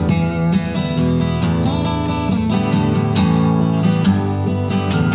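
Background music: a strummed acoustic guitar playing steadily, with no singing.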